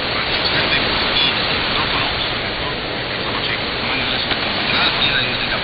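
Weak shortwave AM reception of Radio Slovakia International's Spanish service, relayed by WRMI on 9955 kHz: steady hiss and static, with faint, barely intelligible speech underneath.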